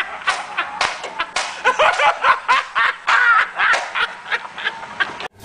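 A man laughing hard in rapid fits, with high squealing whoops in the middle, cut off abruptly near the end.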